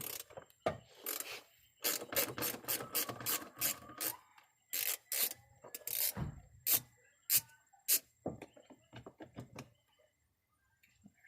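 Ratcheting hand tool clicking rapidly as a screw is backed out of a car's interior door trim panel, followed by scattered separate clicks and knocks of tool and plastic.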